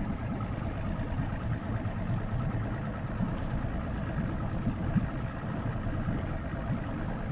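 Motorboat engine idling steadily.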